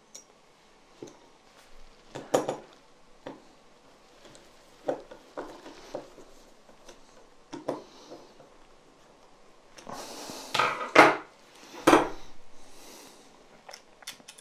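Small clicks and knocks of plastic and metal parts as a LED headlight projector is put back together, with a screwdriver driving in screws. About ten seconds in comes a louder cluster of knocks with a brief rustle as the assembly is handled and set down.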